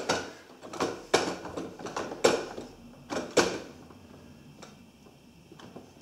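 Hard plastic of a toddler's ride-on toy car being knocked by hand: four sharp knocks in the first three and a half seconds, then only faint light ticks.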